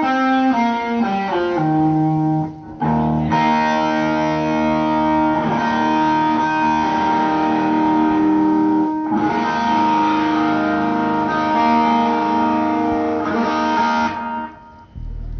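Electric guitar played through effects: a quick falling run of single notes, then long ringing chords that stop about a second before the end. A low note sounds near the end.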